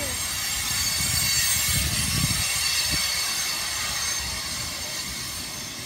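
Freight cars of a mixed freight train rolling past at close range: a steady rumble of steel wheels on the rails, swelling about two seconds in, over a thin high-pitched ringing from the wheels and rails.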